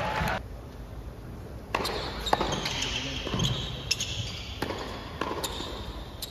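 Tennis ball struck back and forth in a doubles rally: a quick series of sharp racket hits and court bounces, about two a second, starting a little under two seconds in.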